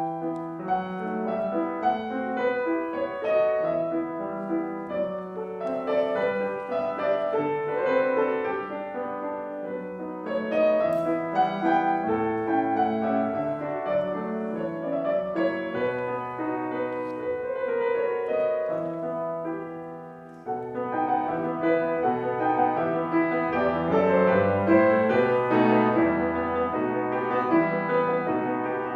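Solo piano playing a classical-style piece, with a brief drop in level about twenty seconds in before the playing picks up louder.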